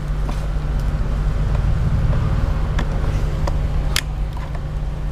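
Screwdriver tightening a battery terminal bolt: a few faint metal clicks, with one sharper click about four seconds in. A steady low rumble runs underneath.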